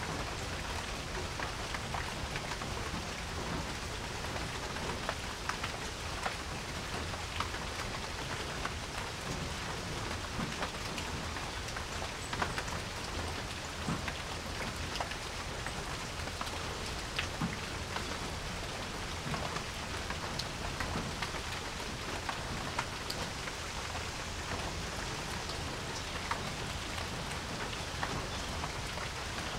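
Steady rain falling on a porch: an even hiss with many close drops tapping sharply and irregularly.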